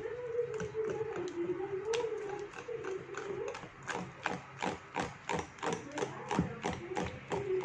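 A hand whisk beating pancake batter in a bowl. From about halfway through, the wires click against the bowl in a quick, even rhythm of about four or five strokes a second.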